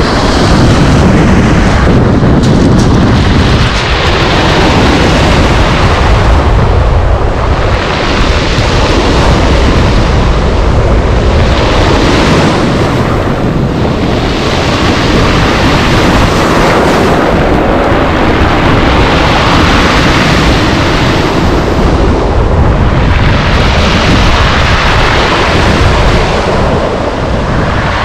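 Sea surf breaking and washing up over a pebble beach, surging roughly every three to four seconds, under a heavy rumble of wind buffeting the microphone.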